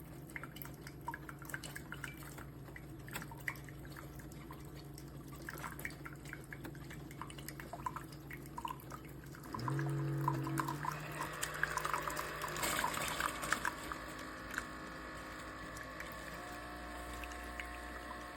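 Single-serve pod coffee maker brewing. Irregular drips, then about halfway through a pump starts with a low hum and liquid begins pouring and splashing, which carries on steadily to the end.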